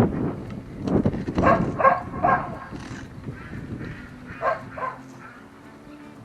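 A dog barking: three quick barks, then two more a couple of seconds later, over low wind rumble on the microphone. Music comes in under them near the end.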